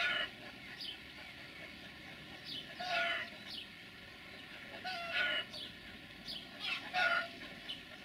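A bird calling over and over: short calls that fall in pitch, one every two seconds or so.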